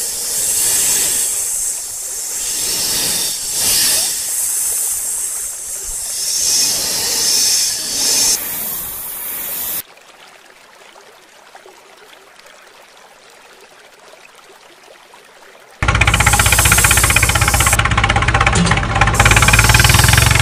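Loud hissing that swells and fades for about ten seconds, then a quiet stretch of several seconds, then, about sixteen seconds in, a loud engine-like rumble with a fast even beat starts suddenly.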